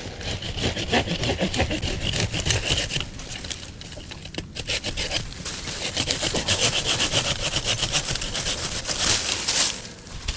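Handsaw cutting through a shrub's woody stem in quick back-and-forth strokes, pausing briefly about four seconds in before sawing on.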